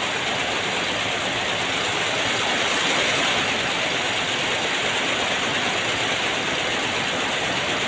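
Steady engine running noise with no change in pace or level.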